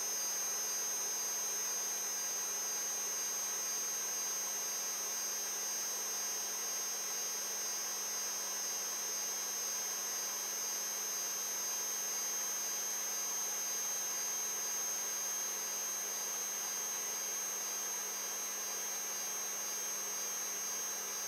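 Protomaker 3D printer giving off a steady electrical hum with a high, thin whine above it, unchanging throughout.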